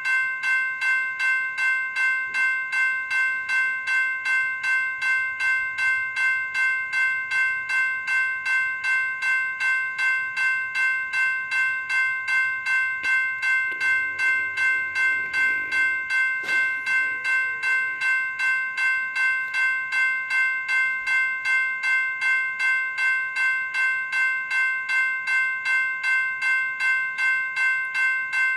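General Signals Type 2 E-Bell electronic bell ringing continuously. It gives a fast, even series of bell-like strokes on a steady set of high metallic tones.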